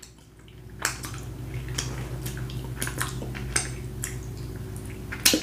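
Close-miked wet mouth sounds: lip smacks and tongue clicks from licking sauce off the fingers and chewing. They come irregularly, about one or two a second, with the sharpest pair near the end.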